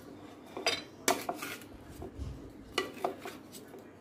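A spoon stirring cut carrot sticks and raw mango pieces in an earthenware bowl, scraping and knocking against the bowl with a few sharp clinks, the loudest just after a second in.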